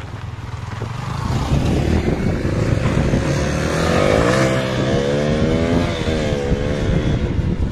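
KTM RC and a second sport motorcycle pulling away and accelerating; the engine note climbs in pitch about halfway through, dips, and climbs again as the bikes go up through the revs.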